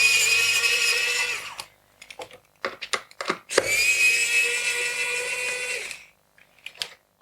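Small electric screwdriver whirring as it backs out small screws: one run ending about a second and a half in, then a few clicks and taps, then a second run from about three and a half seconds to six seconds.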